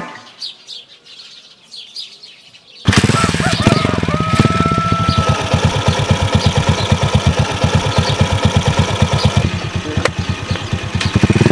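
Small birds chirping, then about three seconds in a Honda TMX 155's single-cylinder four-stroke engine comes in suddenly and idles with a rapid, even thumping while the birds keep chirping.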